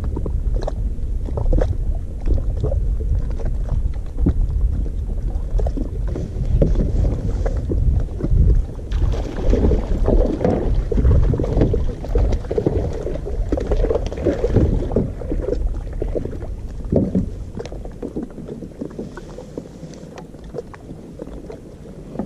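Wind rumbling on the microphone over knocks, thumps and scrapes against a plastic fishing kayak as the angler stands and works a landing net to land a bass. The noise is busiest in the middle, with a stretch of splashing, and dies down near the end.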